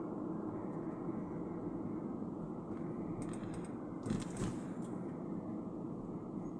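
Steady road and engine noise of a moving car heard from inside the cabin, with a brief clatter of clicks a little past halfway.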